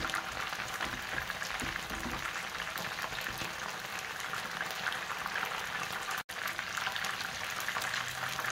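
Floured chicken drumsticks shallow-frying in hot oil in a nonstick pan: a steady sizzle full of fine crackles. It breaks off for an instant about six seconds in.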